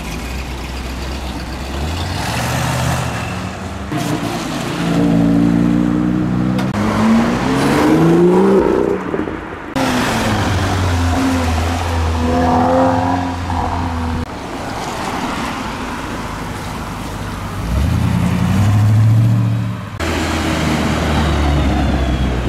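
Cars driving past one after another, their engines rising in pitch as they rev and pull away. A Volkswagen Golf R passes about halfway through and a classic Ford Escort near the end; the sound jumps abruptly from one car to the next a few times.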